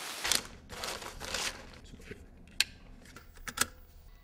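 Handling noise of a camcorder being set up by hand: rustling and fumbling, with two sharp clicks near the end.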